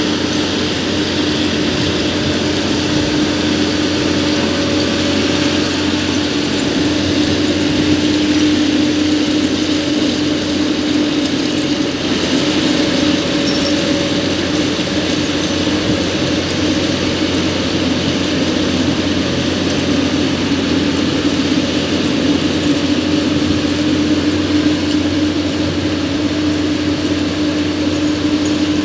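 Plasser PBR-400 R track ballast regulator running: a steady machine hum with a dense mechanical clatter, unchanging throughout.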